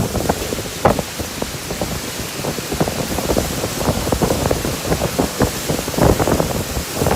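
A storm: wind buffets the microphone in rapid, irregular rumbling gusts, over a steady hiss of rain.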